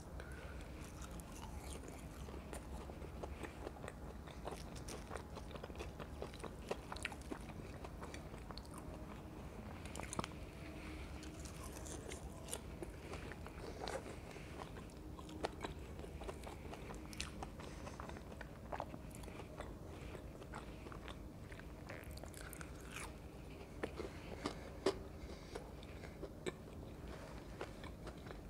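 Close-miked eating of French fries dipped in mayonnaise: biting and chewing with scattered soft crunches and mouth clicks.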